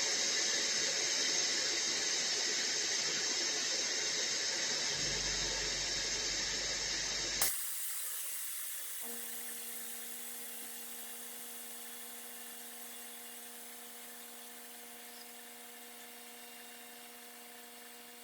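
Shrink fit machine's cooling running: a steady high-pitched hiss and whine that cuts off with a click about seven and a half seconds in. A faint steady hum follows and slowly fades.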